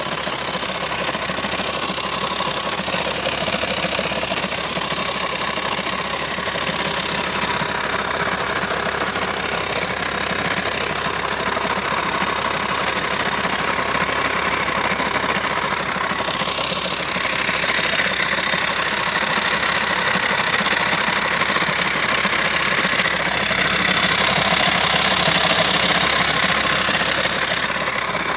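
Volkswagen T5 Transporter 130 hp 2.5 TDI diesel engine running with a knocking, rattling noise, which the owner takes for the sign of a broken gear. The noise grows a little louder near the end.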